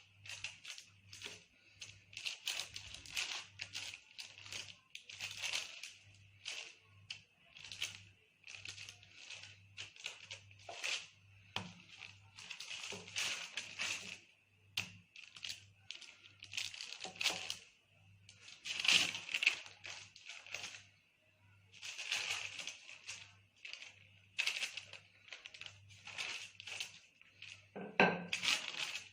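Quiet background music with a steady low beat under many short crackling, rustling handling noises of dough and pan work.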